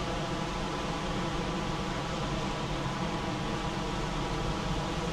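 Heavy rain falling steadily, an even unbroken hiss.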